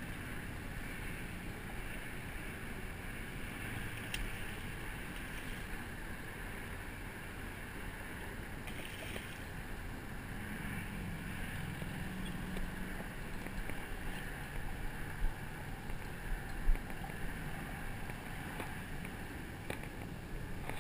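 A hooked fish splashing at the water's surface while it is played on a spinning rod, over steady outdoor background noise. There is a short burst of splashing about nine seconds in and a few sharp knocks a few seconds later.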